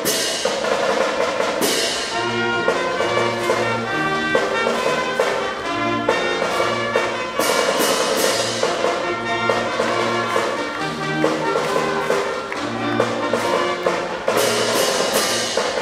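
A high school band playing its school fight song: brass melody over drum beats.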